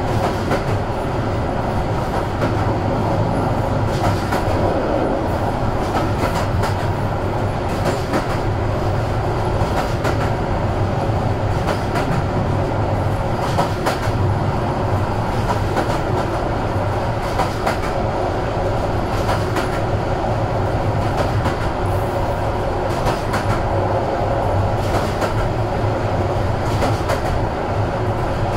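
Passenger train running at speed, heard from aboard: a steady rumble of the ride, with sharp clicks every second or two as the wheels pass over rail joints.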